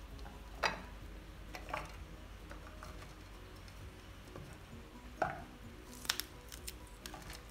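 Soft knocks and rustles of fresh red chilies and shallots being dropped by hand into a plastic food-chopper bowl, a handful of separate taps over quiet background music.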